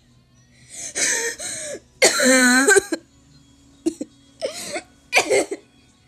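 A person coughing hard in a run of separate fits, mixed with laughter. The loudest fit comes about two seconds in, and shorter coughs follow near the end.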